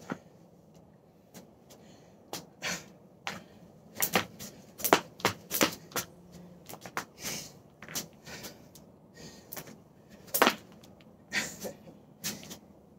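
Plastic jump rope slapping a wooden porch floor as it is turned, in sharp, uneven clicks about one or two a second, starting after a brief pause.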